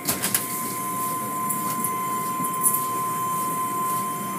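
Automatic tunnel car wash running, heard from inside the car: water spray and the hanging cloth strips washing over the car, under a steady high whine from the machinery. A few knocks come near the start.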